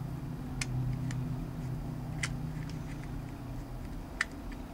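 A few small, sharp clicks as the trigger bar and its pivot are fitted into the Grendel P12's polymer frame and lined up, over a steady low hum.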